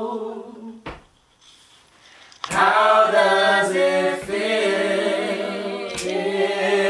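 Men's voices singing an a cappella melody in held notes. The singing fades out about a second in and starts again about two and a half seconds in.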